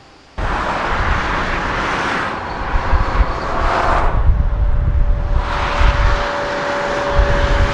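Road traffic passing at speed, starting abruptly and swelling twice as vehicles go by, with a deep rumble and a steady tone through the second pass.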